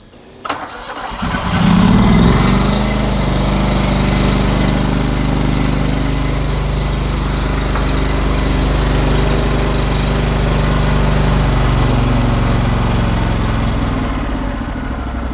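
A floor scraper's propane twin-cylinder engine starts about a second in after a click, revs up briefly, then runs steadily, easing off a little near the end. It is running good on both cylinders, its misfire cured by re-gapping the spark plug, whose contacts had closed up, to .020 in.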